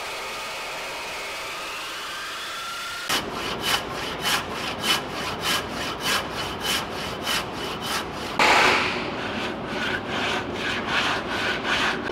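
An electric circular saw runs steadily for about three seconds. Then a handsaw cuts through a purpleheart timber in quick back-and-forth rasping strokes, about three a second, with one louder stroke a little past halfway.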